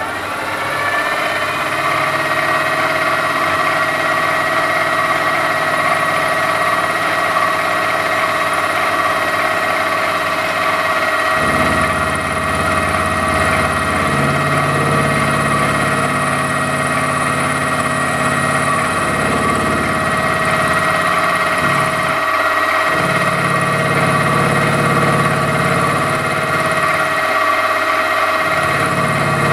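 Milling machine spindle motor spinning up in the first second, then running steadily with a whine of fixed tones while an end mill cuts a metal part on a rotary table. From about 11 seconds in, a lower hum comes and goes several times.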